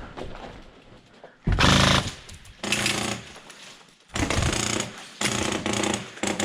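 Airsoft electric rifle firing rapid full-auto bursts, about five of them, each lasting around half a second. The first burst, about a second and a half in, is the loudest.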